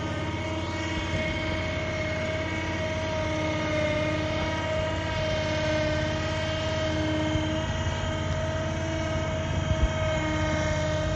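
Small tractor-loader-backhoe's engine running steadily with a held drone as it moves a trailer-mounted cement mixer, with a couple of short knocks near the end.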